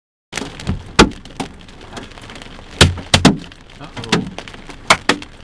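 Hailstones about an inch across banging hard on a car's body, heard from inside the car, over a steady hiss of rain. About ten sharp, irregular hits; the loudest come about a second in and again around three and five seconds in.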